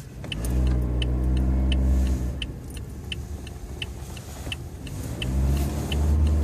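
Car engine heard from inside the cabin, accelerating with a rising pitch, easing off, then accelerating again about five seconds in, with a light ticking about three times a second.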